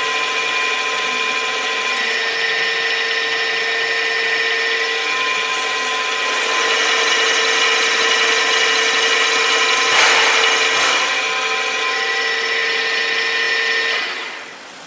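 Knuth VHF 1 drill-milling machine running, with a steady whine from its spindle drive. There is a brief louder, noisier burst about ten seconds in, and the sound dies away near the end.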